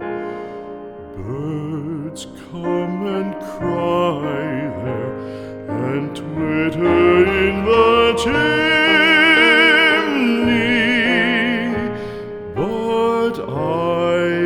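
Background music: a slow, tender song with a wavering vibrato melody over accompaniment, with no words sung here.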